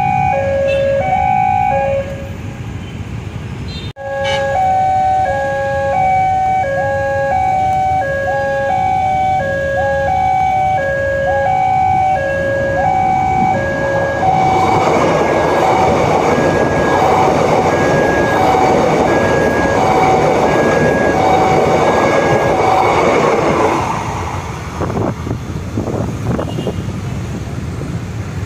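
Railway level-crossing alarm: a two-tone electronic chime alternating between a low and a high pitch over and over. It drops out briefly about two seconds in, then resumes. About fourteen seconds in, an electric train runs over the crossing, a loud rolling rumble of wheels on rail lasting about ten seconds, with the alarm still going beneath it.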